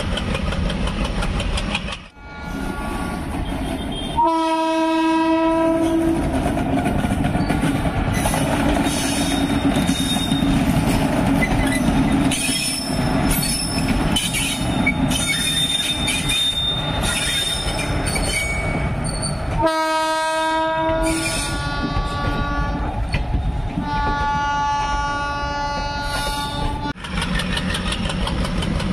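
WAP-1 electric locomotive passing at close range with the steady rush and clatter of its wheels on the rails. Its horn sounds a long blast about four seconds in, and again about two-thirds of the way through, followed by several shorter held notes at other pitches.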